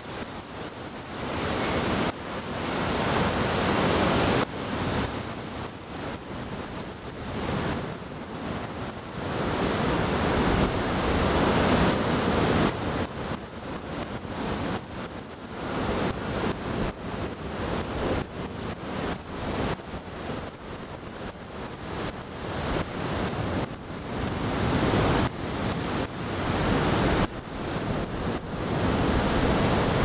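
Chest-to-head-high typhoon swell breaking on the beach, the surf swelling and ebbing in surges every several seconds, with wind buffeting the microphone.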